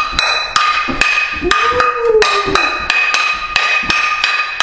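Metal pots and pans banged together in a steady beat, about two to three clangs a second, each one ringing on.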